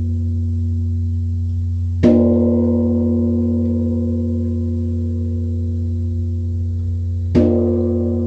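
Large Korean Buddhist temple bronze bell (beomjong) struck twice, about five seconds apart, with a wooden log striker. Each stroke rings out in several long, slowly fading tones over the bell's deep, steady hum.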